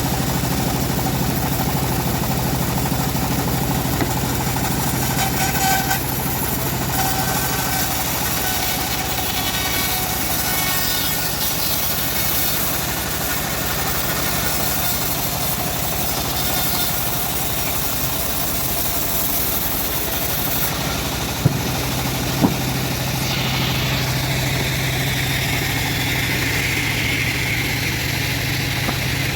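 Homemade bandsaw sawmill running steadily, its engine drone and the blade's noise mixed together. A little past the middle come two sharp knocks about a second apart.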